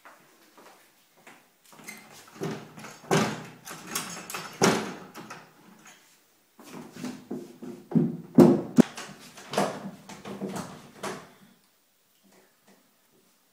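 Doors being rattled as their handles are tried and pulled, in two stretches of clattering knocks with the loudest hits in the second, then a few faint taps near the end.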